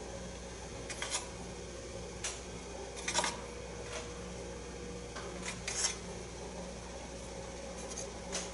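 Thread being pulled and rubbed against a wooden dowel by hand while hand-wrapping a fade wrap: about six short scratchy rustles, over a steady low hum.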